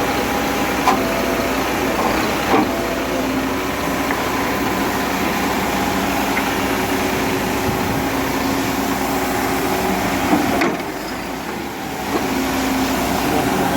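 Crane truck's diesel engine running steadily with the power take-off engaged, driving the crane's hydraulics. There are a few sharp clicks or knocks, and the sound briefly drops in level about eleven seconds in before picking up again.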